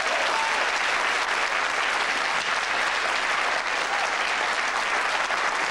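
Studio audience applauding steadily, in congratulation of an honour just announced.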